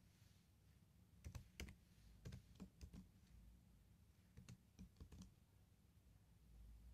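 Faint, scattered keystrokes on a computer keyboard, in short runs of a few taps each.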